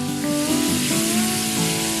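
Food frying in hot oil: a steady sizzle, under soft background music with a slow melodic line.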